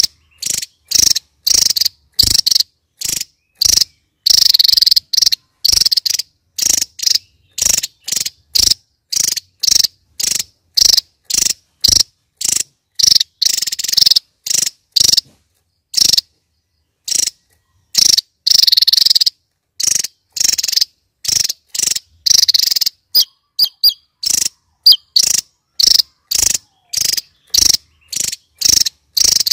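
Javan tesia song: a rapid, even run of short, high chirping notes, about two to three a second, broken by a pause of a couple of seconds about halfway through.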